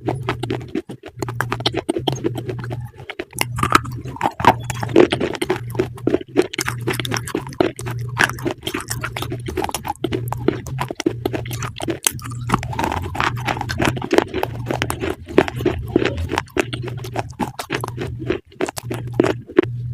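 Crunchy chewing: something crisp being bitten and chewed, with dense irregular crackling crunches throughout.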